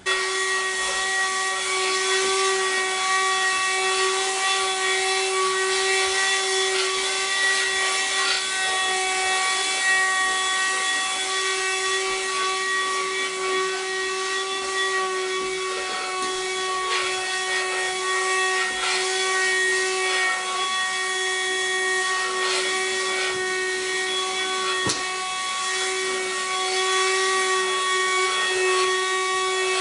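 Handheld cordless vacuum cleaner running steadily: a constant motor whine over the rushing hiss of its airflow, with one brief click late on.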